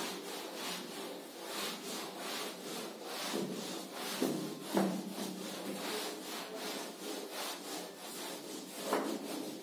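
Whiteboard being wiped clean with an eraser: repeated back-and-forth rubbing strokes across the board's surface, a stroke roughly every second.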